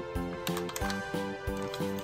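Background music with a steady beat and a repeating melody of short held notes.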